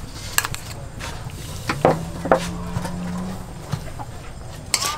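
A metal spoon scraping and clinking against a bowl and a wok as seasoning paste is knocked into the pan, a few sharp clinks in all. A steady low hum sounds underneath for a second or two in the middle.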